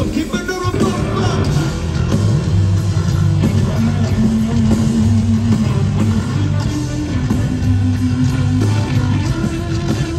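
Live funk-rock band playing through a stadium PA: a loud, repeating bass line under electric guitar, with a sung line in the first moment.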